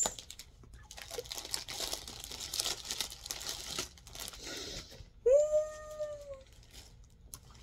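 Packaging crinkling and rustling as a clothing parcel is unwrapped, then about five seconds in a woman's high-pitched squeal of excitement, held for about a second and louder than anything else.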